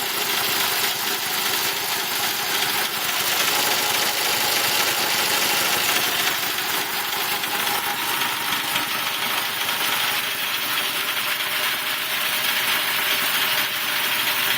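Quincy belt-driven air compressor running steadily, its pump building pressure in the tank.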